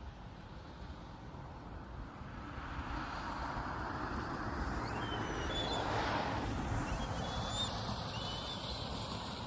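A vehicle passing by, its noise swelling to a peak about six seconds in and then fading. A few short, high bird chirps sound over it near the peak and again shortly after.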